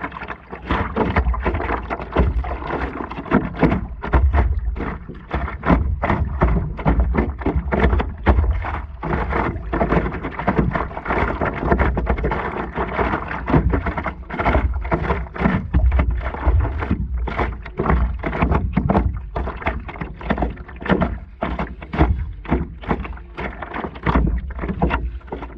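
River water slapping and splashing against the front of a stand-up paddleboard as it is paddled, in many quick irregular splashes over a steady low rumble.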